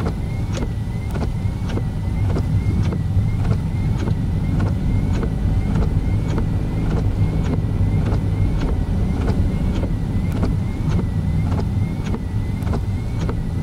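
Car interior at low speed: a steady low rumble of engine and tyres, with an even ticking about twice a second.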